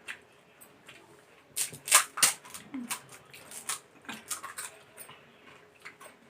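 Pani puri being eaten: crisp puri shells crunching and juicy mouthfuls slurped. A quick run of loud crunches comes about one and a half to two seconds in, followed by scattered smaller chewing clicks.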